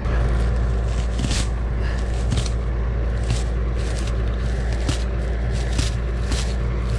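Loader tractor engine idling low and steady, with a series of short scraping, crunching sounds on top about once a second.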